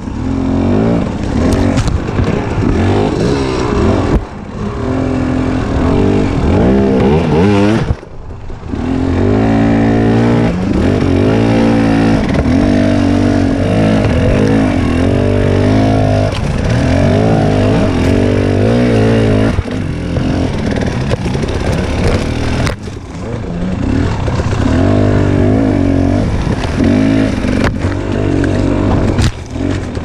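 Husqvarna TX 300 two-stroke enduro motorcycle engine revving under hard riding, its pitch rising and falling with the throttle, with a few short drops off the throttle.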